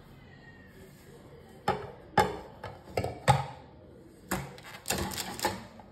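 A metal tube cake pan knocking and clacking against a wire cooling rack as the cake is turned out: a string of about nine irregular sharp knocks starting about a second and a half in.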